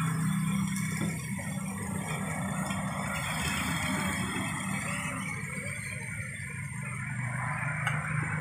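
Steady roar of the wok stove's gas burner with noodles frying in the wok, and a couple of clinks of the metal spatula against the wok, about a second in and near the end.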